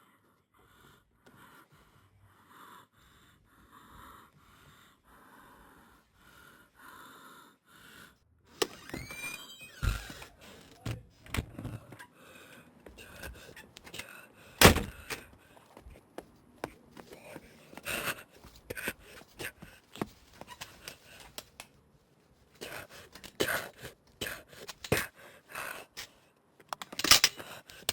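A person gasping for breath in quick, repeated, faint breaths. From about eight seconds in come louder sudden thuds and knocks; the loudest is around the middle and another comes near the end.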